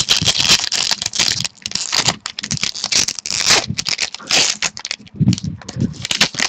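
A foil trading-card pack being torn open and handled, an uneven run of crinkling, crackling and scraping.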